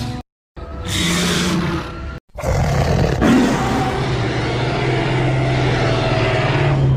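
Daspletosaurus roar sound effect: a short roar cut off just after the start, another roar about half a second in lasting about a second and a half, then a long, deep, steady roar from about two and a half seconds in to the end.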